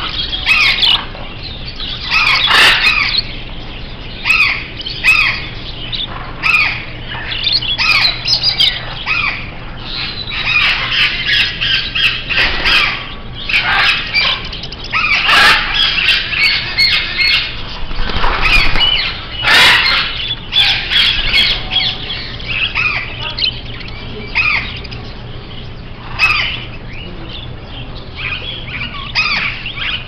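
Many caged birds calling at once, canaries and small parrots such as budgerigars and lovebirds: overlapping squawks and chirps, loud and continual, swelling and easing every second or so.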